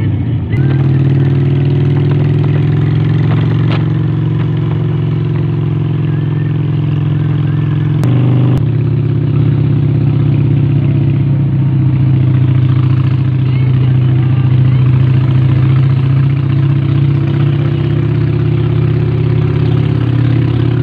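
Cruiser motorcycle engine running steadily at road speed while riding, heard from the saddle as a low, even drone. A brief break in the note with a couple of clicks comes about eight seconds in.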